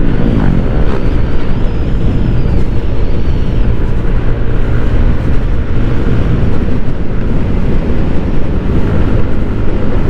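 Yamaha Aerox 155 scooter's single-cylinder engine running at road speed under heavy wind noise on the camera microphone. An oncoming motorcycle passes about half a second in, its engine note falling in pitch as it goes by.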